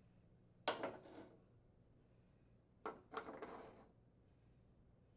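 Gas range burner caps being set down onto their burner bases: two short clinks about two seconds apart, the second followed by a brief scrape as the cap is seated.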